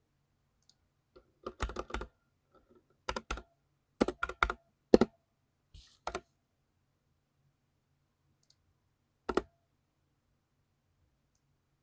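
Mechanical keyboard keys typed in short, irregular bursts: several clusters of two to five keystrokes in the first half, then a lone keystroke about six seconds in and another near nine and a half seconds, with quiet pauses between.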